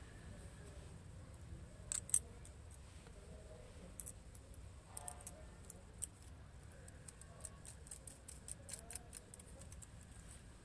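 Small metal parts clicking and clinking as a bolt, washers and a nut are fitted to the centre of a wire fan guard. One sharp click about two seconds in, then a run of quick light ticks near the end.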